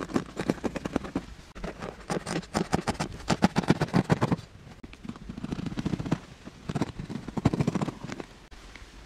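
A long knife sawing back and forth through the ridged rind of a large luffa gourd, a rapid rasping train of short strokes in several bursts with brief pauses between.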